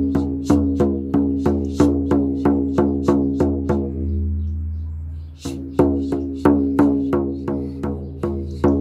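Shaman frame drum beaten steadily, about three beats a second, over a sustained low drone. The beating stops for about a second and a half midway, then picks up again.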